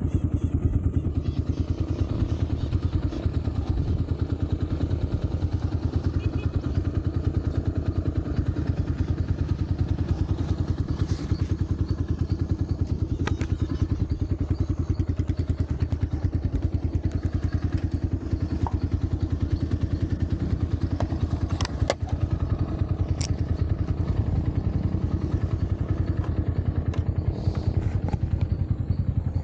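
Motorcycle engine running steadily at low revs, with a few sharp knocks or clicks over it.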